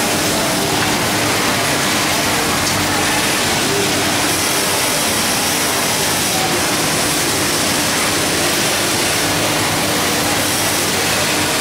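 Steady workshop machinery noise in a garment factory: a continuous rushing hiss with a faint constant hum underneath, even and unbroken throughout.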